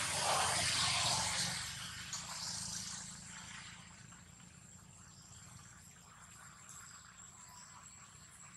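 Woodland ambience with a thin, steady, high-pitched insect trill, typical of crickets. A louder rustling noise fills the first two seconds, then fades.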